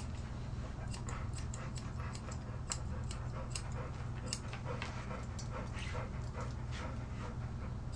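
Grooming scissors snipping repeatedly through an Airedale Terrier's leg coat, quick irregular snips a few times a second, over a steady low hum.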